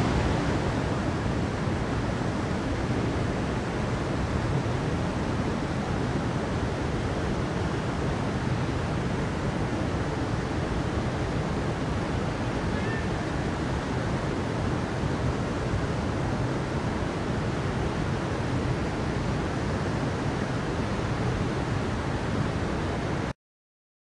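Mountain stream rushing steadily over rocks, an even roar of flowing water that cuts off abruptly near the end.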